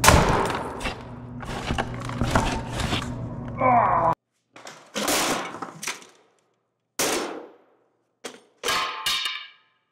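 Pickaxe smashing an iMac all-in-one computer: a loud crash at the first blow with clattering and breaking for a few seconds, then several more separate blows, the last one ringing briefly.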